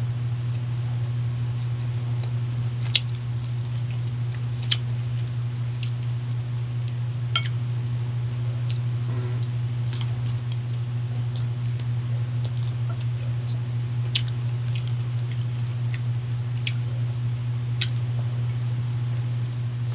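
Close-up mouth and chewing sounds of a person eating roast chicken and rice by hand, with a few sharp clicks spread every few seconds, over a steady low hum.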